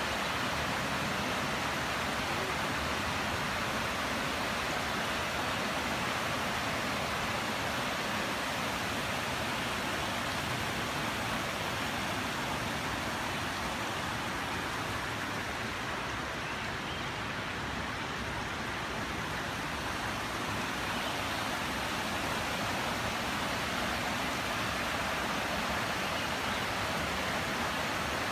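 Shallow, rocky mountain creek rushing over cobbles and boulders: a steady, even rush of water, a little softer and duller for a few seconds past the middle.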